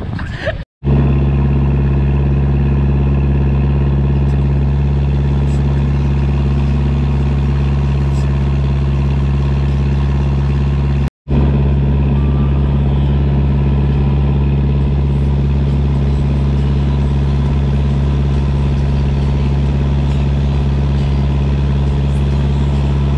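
Fishing boat's inboard engine running steadily at one speed while the boat is under way, heard from on deck. The sound drops out for an instant about a second in and again about eleven seconds in.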